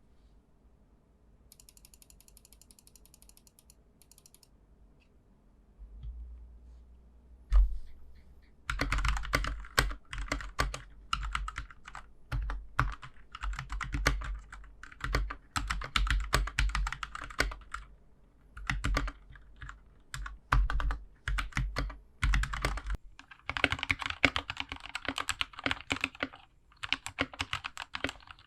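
Typing on a GK61 mechanical keyboard with Gateron Milky Yellow linear switches. After a quiet start and a single click, a fast, uneven run of key clacks begins about nine seconds in and carries on with short pauses.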